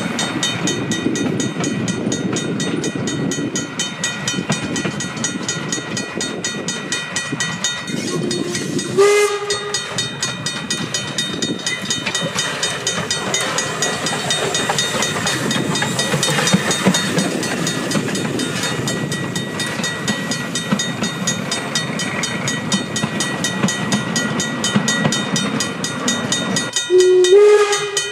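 NZR F class saddle-tank steam locomotive 'Peveril' running with its train, its exhaust and wheel noise steady on the rails. It sounds its steam whistle in two short blasts, one about nine seconds in and one near the end.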